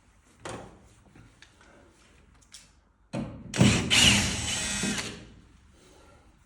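Power drill running for about two seconds, about halfway in, after a few light knocks.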